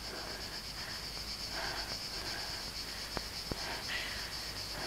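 Crickets chirping steadily in a high, finely pulsing trill, with faint soft rustle-like sounds and two small clicks in the second half.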